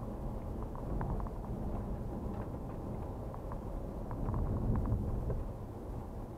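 Car driving along a lane, heard from inside the cabin: a steady low rumble of tyres and engine, with scattered light ticks and rattles.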